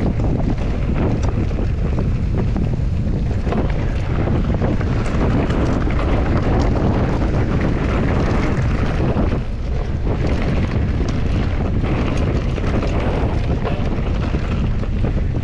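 Mountain bike riding a rough trail: wind buffeting the camera's microphone over a steady rumble, with many small knocks and rattles from the bike. The noise eases briefly about nine and a half seconds in.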